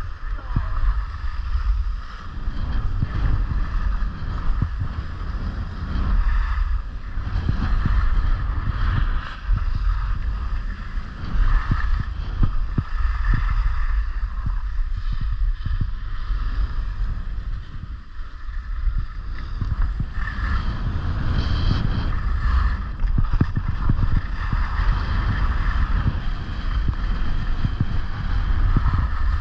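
Wind rushing over the microphone of a skier moving downhill, a steady low rumble. A shifting hiss and scrape from skis sliding and turning on groomed snow rises and falls through it.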